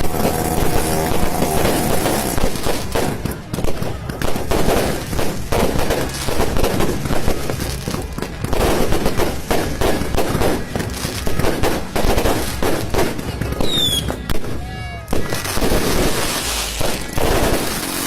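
Fireworks going off in quick succession: a dense run of bangs and crackles, with a short whistle about fourteen seconds in.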